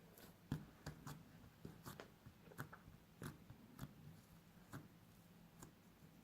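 Homemade flour-and-shampoo slime being squeezed and kneaded by hand, making faint, irregular sticky clicks and squelches about twice a second.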